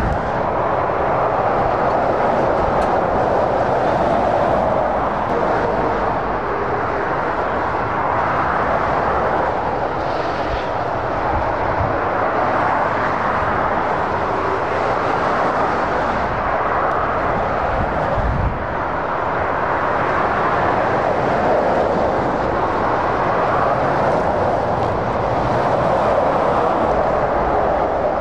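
Busy motorway traffic of lorries and cars passing: a continuous rush of tyre and engine noise that swells and eases every few seconds as each vehicle goes by.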